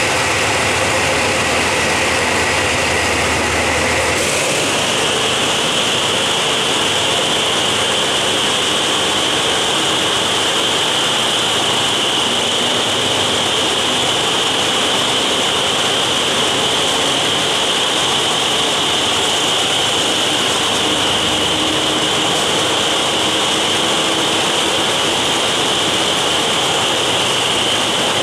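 Diesel passenger train moving slowly along the platform, heard from a coach window: a steady running noise with a high whine that steps up in pitch about four seconds in and then holds.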